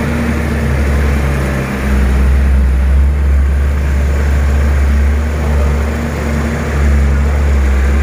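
A heavy Hino truck's diesel engine runs with a steady deep drone as the truck drives along a rough dirt road. The engine grows louder about two seconds in and again near the end.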